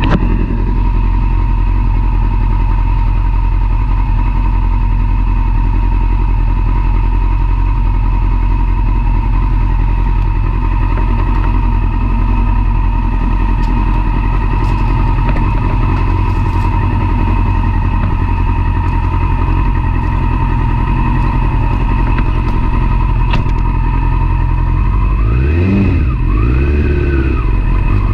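Yamaha sport motorcycle engine idling steadily. About three seconds before the end it is revved a few times, the pitch rising and falling as the bike pulls away.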